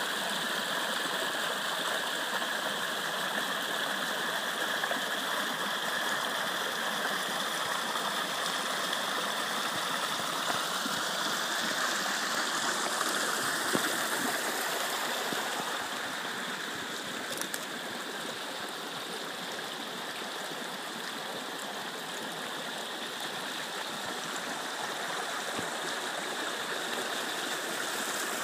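A small, shallow stream flowing steadily over rocks, a little quieter past the middle.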